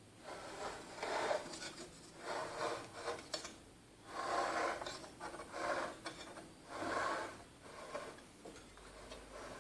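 Handling noise: a series of short rubbing, scraping sounds, about six or seven in all, with no motor or compressor running.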